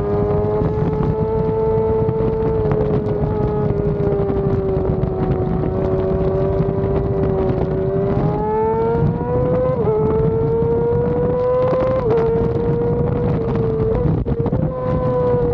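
Yamaha R6 inline-four engine running at high revs, heard from onboard the bike, its pitch holding high with slow rises and falls and a few quick dips about ten, twelve and fourteen seconds in. Wind rush sits underneath.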